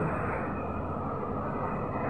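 Steady background noise of a crowded hall: an even low rumble and hum with no clear voices.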